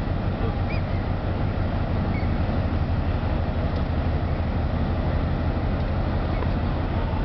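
Steady low engine rumble from a large ship and its tug manoeuvring away from the quay, a constant deep hum with noise on top.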